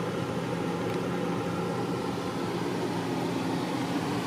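Ford Falcon AU idling with the air-conditioning blower running, heard inside the cabin: a steady low hum under an even fan hiss.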